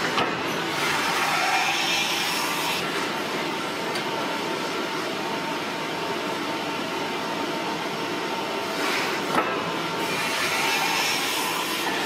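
Steady machinery noise from a large hydraulic forging press and the forge plant around it, swelling slightly now and then, with one sharp knock about nine seconds in.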